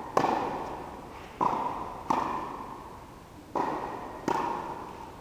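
Tennis ball struck by rackets and bouncing during a rally: five sharp pops in pairs about 0.7 s apart, each ringing on in the echoing indoor hall.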